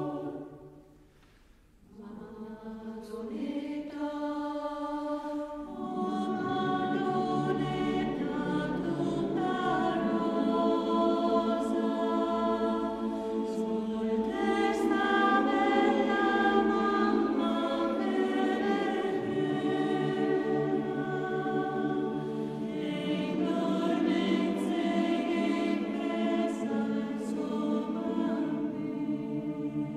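Mixed choir of men's and women's voices singing an unaccompanied Alpine folk song in several parts. A phrase ends just after the start, a short pause follows, and the choir comes back in about two seconds in, growing fuller from about six seconds in.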